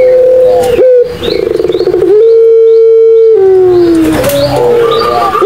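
A puter pelung turtle dove cooing loudly. Its long drawn-out notes are held at a steady pitch, and one note slides downward. About a second in, there is a rapid trembling, pulsing stretch.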